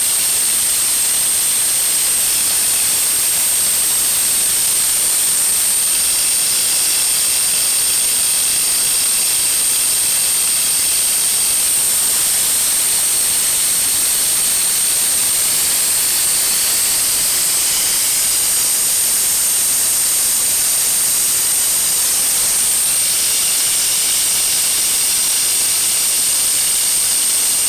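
Oil vacuum extractor running, sucking engine oil out through the dipstick tube: a loud, steady hiss with a constant high whistle.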